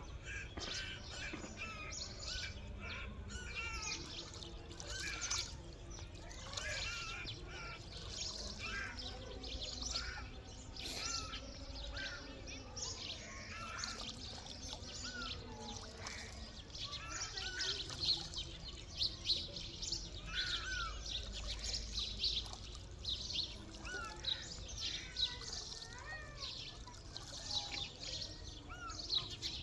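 Many small birds chirping and calling at once: a dense, continuous chatter of short, overlapping chirps and quick whistled glides.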